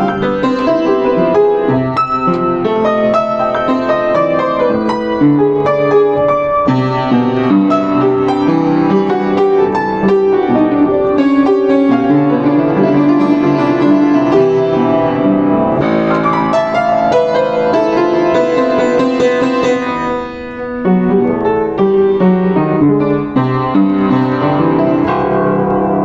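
Yamaha JU109 upright piano played solo: a flowing romantic piece of melody over chords, with a brief drop in loudness about twenty seconds in.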